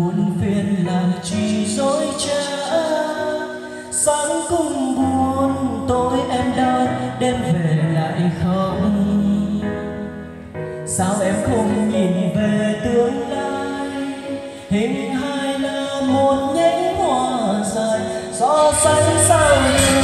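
A karaoke song with singing playing through a portable trolley karaoke speaker with dual 40 cm bass drivers (NT 1508).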